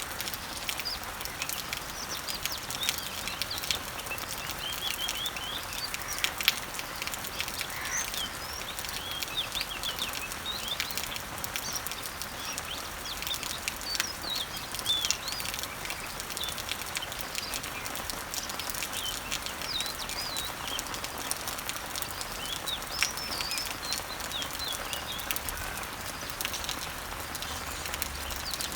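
Summer rain falling steadily on garden leaves and trees, with many sharp drop ticks, while birds chirp over and over in the background.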